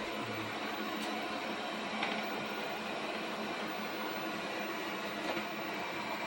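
Airzeen R7 robot vacuum cleaner running, a steady whirring suction noise with a low hum, broken by a few faint ticks.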